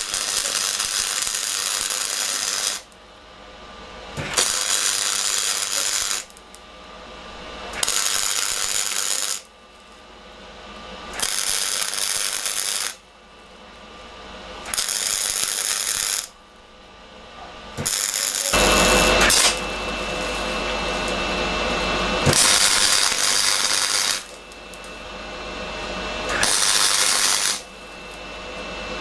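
Electric welding arc crackling on 16 mm round steel tube, in about seven runs of one to two seconds with short pauses between, one longer run of about five seconds in the middle.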